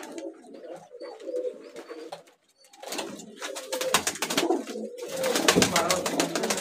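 Domestic pigeons cooing in a loft, with scattered sharp clicks and scuffles among them. There is a brief break about two and a half seconds in, and the cooing and clicking grow louder and busier in the last second and a half.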